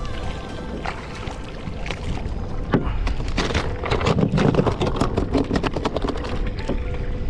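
Wind buffeting an action-camera microphone on a kayak on choppy water. From about three seconds in come close rustles and clicks as hands handle fishing line while rigging a live bait.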